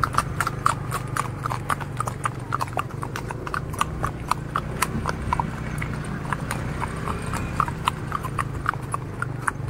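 Hoofbeats of several horses walking on a concrete path: an uneven clip-clop of sharp knocks, about three or four a second.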